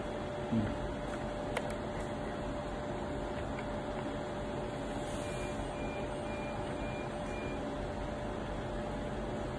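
A steady electrical hum and hiss, with a soft knock about half a second in and a small click about a second and a half in as the DAC's casing is handled and its front cover pressed into place.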